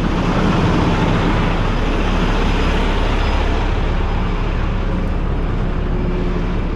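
Peterbilt 389 semi truck's diesel engine idling steadily with the PTO engaged to drive the trailer's pump and the engine cooling fan switched on.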